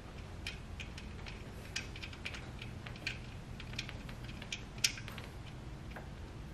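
Faint, uneven metallic clicks and taps as a new nut is worked by hand onto a master cylinder mounting stud. The nut is tight and hard to start. A steady low hum runs underneath.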